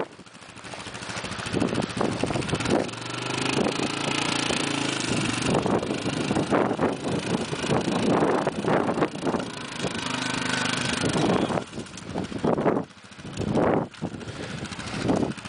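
4x4 ATV engine working under load as the quad climbs a steep slope, its note strengthening and easing off several times.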